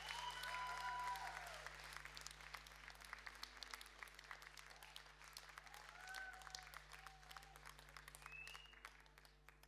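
Audience applauding, with a few short whoops over the clapping; the clapping thins out and dies away toward the end.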